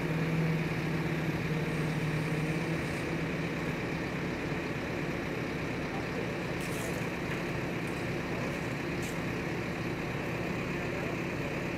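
Heavy diesel engine of the assist crane running steadily while it holds the Marion 111M's upper works on its hook, with a strong low hum that eases about three seconds in.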